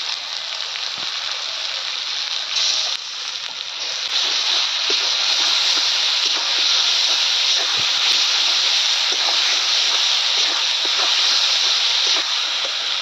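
Onions and spice paste frying in hot oil in a kadai, a steady sizzle, while being stirred with a metal spatula; the sizzle grows louder about four seconds in. This is the koshano (bhuna) stage, the masala being fried down until the oil separates.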